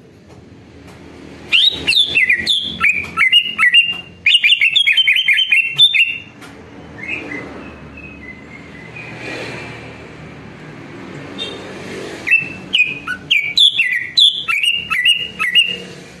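Male greater green leafbird (cucak ijo) singing in two loud outbursts of rapid, varied chirps and short whistles, with a quieter pause of several seconds between them.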